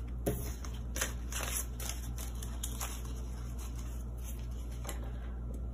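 Paper banknotes rustling and crackling in the hands as they are counted and stuffed into a cash budget envelope: a run of short, crisp crackles and flicks at irregular intervals.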